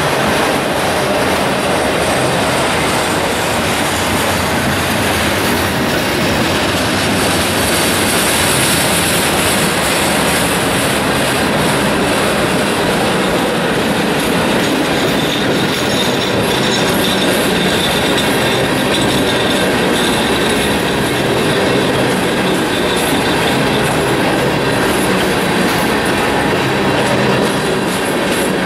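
Freight cars of a mixed manifest train rolling past close by: a steady clatter and rumble of steel wheels on the rails, clicking over rail joints. A high-pitched wheel squeal rises in places.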